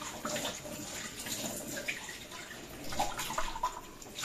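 Dishes being washed by hand under a running kitchen tap: water splashing into a stainless steel sink, with now and then a short clink of crockery.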